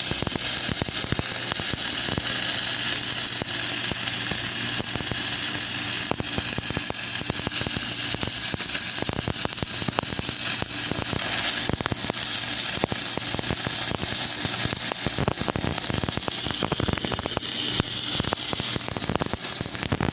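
Stick (arc) welding with a 2.6 mm electrode: a continuous frying crackle of the arc over a steady low hum from the welding machine. This is a full-rod test burn of a freshly serviced welder, with the arc holding steadily.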